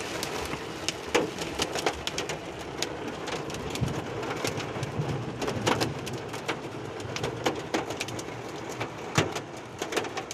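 Hail mixed with heavy rain pelting a truck, heard from inside the cab: a steady patter with irregular sharp knocks from hailstones striking the roof and windows, a few of them much louder.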